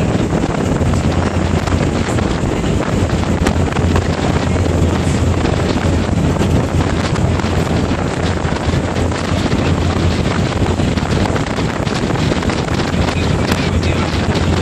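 Wind buffeting the microphone on a moving passenger ferry, over a steady low rumble from the ferry's engines and the water along its hull.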